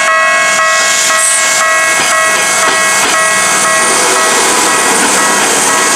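Japanese railway level-crossing alarm with the Tokyu-type electronic bell, ringing about twice a second. From about two seconds in, the rushing noise of a train passing builds up and partly covers the bell.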